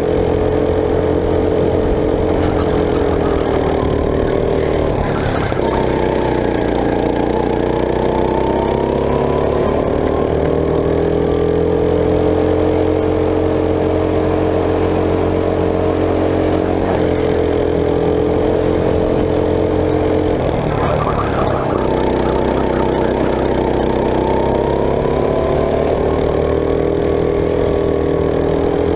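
Go-kart engine heard from on board, running at high revs through a lap. The engine note drops twice, about five seconds in and again past twenty seconds, as the kart slows for corners, then climbs back up as it accelerates.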